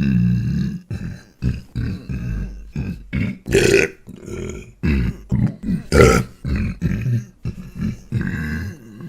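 A man burping over and over: a quick run of more than a dozen short belches, the loudest about three and a half and six seconds in.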